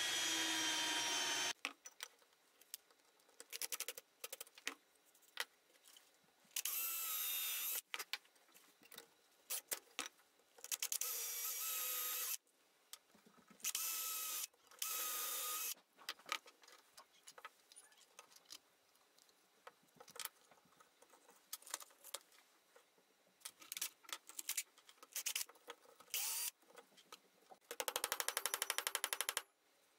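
Cordless drill boring into a wood block in several short bursts of one to two seconds, its motor whine starting and stopping, with clicks and knocks of tools being handled between bursts. A last burst near the end has a rapid rattle.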